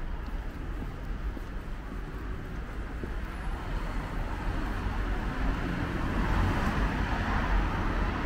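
City street traffic: a steady rumble of road noise, with a vehicle's engine and tyre noise growing louder through the second half as it comes closer.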